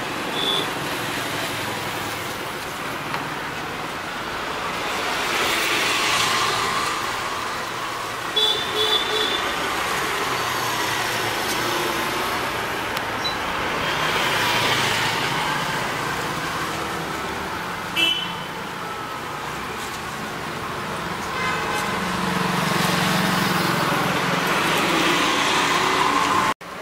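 Street traffic: vehicles go by in slow swells of road noise, three in turn, with a few short horn toots.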